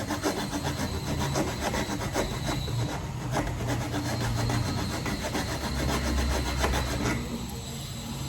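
Rapid, repeated rasping strokes of a tool cutting or shaping material, over a low steady hum.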